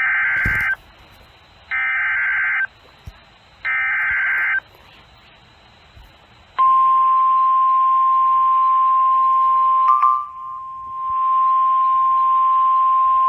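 Emergency Alert System SAME header: three screechy data bursts of just under a second each, then the steady single-pitch NOAA Weather Radio 1050 Hz warning alarm tone. Together they announce a new warning broadcast. The tone wavers and dips briefly about ten seconds in.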